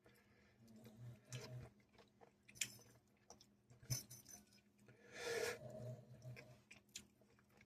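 Faint chewing and mouth noises of a person eating ramen, with a few soft clicks scattered through.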